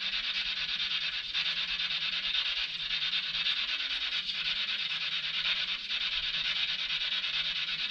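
SB7 spirit box sweeping through radio frequencies: a steady hiss of radio static with a fast flutter as it jumps between stations, over a low wavering hum.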